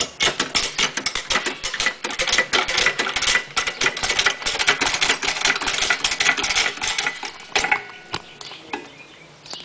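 Hydraulic floor jack being pumped with its handle to lift a car: a dense, fast clicking and rattling from the jack's pump and handle, which stops about three-quarters of the way through.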